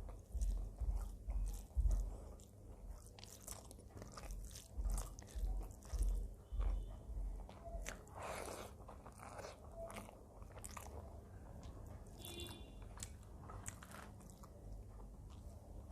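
A person chewing and biting food close to the microphone, with wet mouth clicks; the chewing is heaviest and most rhythmic in the first half, then softer.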